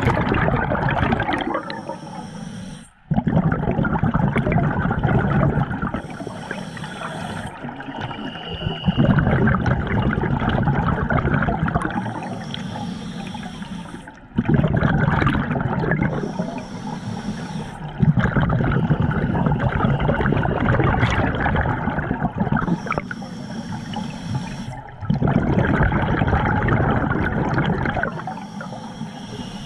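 Scuba diver breathing through a regulator underwater. A short hissing inhale alternates with a longer, louder rush of exhaled bubbles, about every five seconds.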